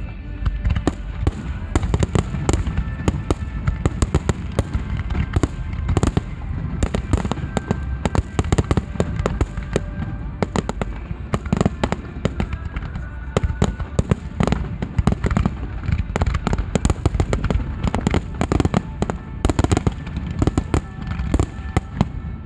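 Fireworks display: a continuous barrage of bangs and crackling, many shells bursting every second.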